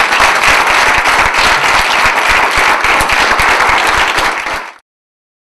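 Audience applauding, loud and steady, cutting off suddenly near the end.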